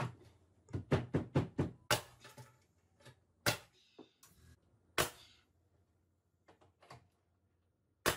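Pneumatic nail gun firing into a plywood panel as it is fixed in place: a quick run of sharp knocks about a second in, then single sharp shots a second or more apart, one of the loudest near the end.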